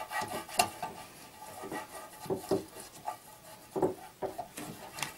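Silicone pastry brush greasing the inside of a metal loaf pan with oil: irregular soft taps and brushing scrapes against the tin.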